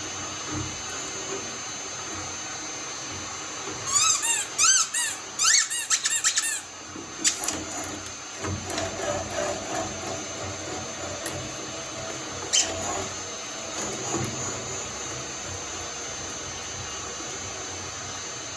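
Shredder motor running steadily, with a cluster of sharp, high squeaks that rise and fall in pitch about four to seven seconds in as it crushes material, and a few sharp clicks later.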